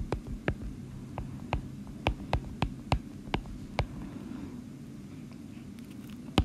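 A stylus tapping on a drawing tablet as short pen strokes are drawn: a quick, uneven run of about a dozen sharp ticks for the first four seconds, then only a low steady hum.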